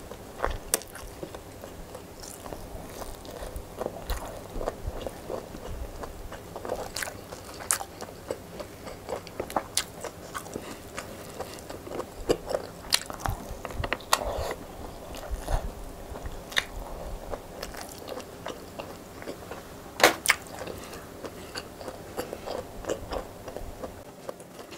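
Close-miked chewing and biting of rice, fish and raw leafy greens eaten by hand, with irregular crunches and clicks. One click about 20 seconds in is louder than the rest.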